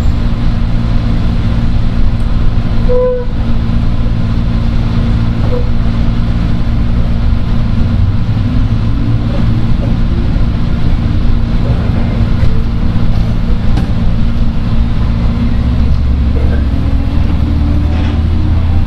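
Running sound inside the motor car of a JR 103 series electric train: a steady low rumble and hum from the traction motors and the wheels on the rails. A brief tone sounds about three seconds in, and the low hum grows stronger near the end.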